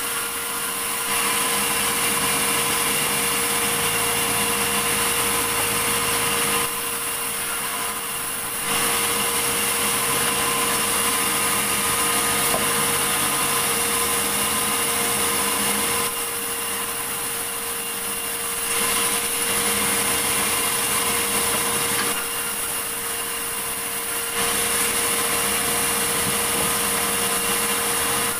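Sawmill saw running steadily with a constant hum while cutting a large medang log. Louder stretches of cutting alternate with shorter, quieter spells, which drop in about seven, sixteen and twenty-two seconds in.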